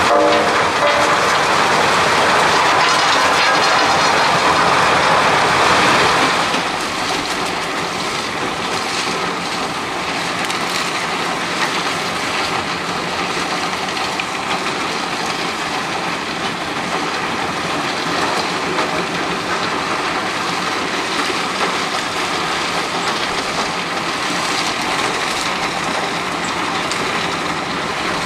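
Albach Diamant 2000 mobile wood chipper running loudly. A louder, brighter spell for about the first six seconds drops to a steady, slightly quieter running.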